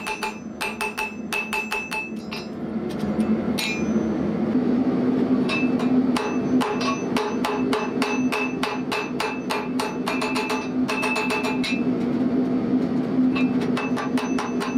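Hand hammer forging a red-hot steel bar on an anvil: quick blows, about four a second, each with a ringing clang, in runs broken by short pauses. A steady low hum lies underneath.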